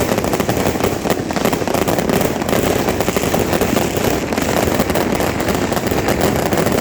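Fireworks and firecrackers crackling densely and without a break, a rapid run of sharp cracks.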